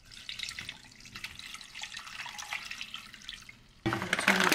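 Water pouring from a glass measuring cup into a pot of instant noodles, a soft steady splashing. About four seconds in, a louder crinkling of a plastic snack packet being shaken out over the pot.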